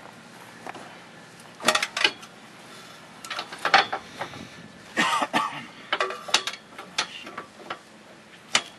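Socket wrench clicking and metal tools clinking in short, irregular bursts as the trailer hitch's mounting bolts are tightened.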